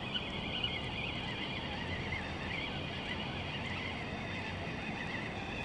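Small birds twittering, many short high chirps overlapping, over a steady low outdoor hiss.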